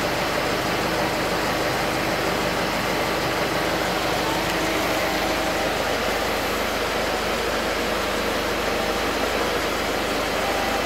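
Nissan Cabstar's 3.0-litre turbo-diesel engine idling steadily at about 700 rpm, heard from inside the cab.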